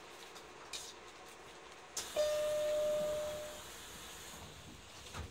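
A single steady electronic tone, about a second and a half long, starts with a click about two seconds in and fades out, over the quiet hum of a stopped train car; a low thump follows near the end.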